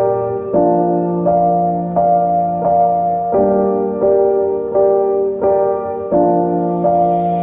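Background music: a keyboard playing sustained chords, a new chord struck about every 0.7 seconds in a slow, even rhythm.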